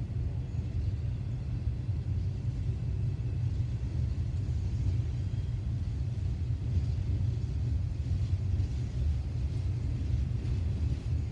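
Mixed freight train of tank cars and container cars rolling past at a distance: a steady low rumble.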